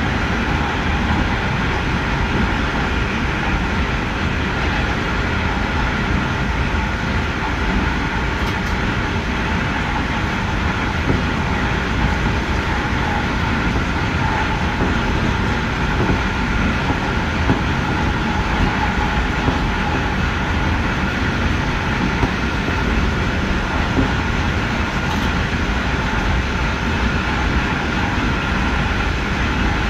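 Electric passenger train running steadily along the rails: a continuous rumble of wheels on track, with a faint steady whine and occasional light ticks.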